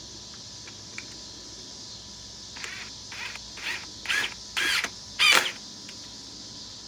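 Cordless impact driver (DeWalt DCF860) given six short trigger blips about half a second apart, each louder than the last, while trying to start a 4-inch Phillips drywall screw gently. The driver has no slow feather mode, so every pull comes on hard.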